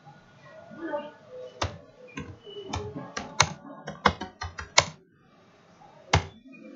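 Computer keyboard keys clicking as words are typed: about a dozen quick, irregular keystrokes, a pause of about a second, then another keystroke near the end.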